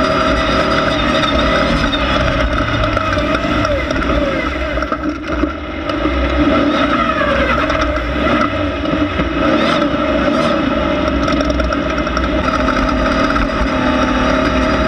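Air-cooled Volkswagen 1600 engine of a class 1600 off-road race car running hard under load. It briefly lifts off the throttle about five seconds in, then pulls again.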